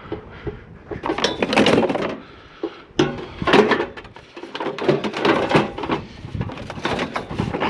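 Scrap being rummaged through and shifted by hand: irregular clattering and knocking of metal and plastic parts in several bursts, with sharp clicks.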